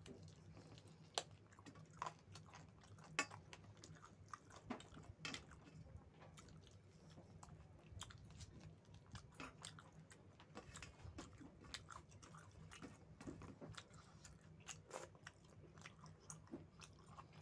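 Close-up eating sounds of rice with chicken curry: wet chewing, smacking and small clicks at an irregular pace, a few sharper clicks standing out near the start, over a faint steady low hum.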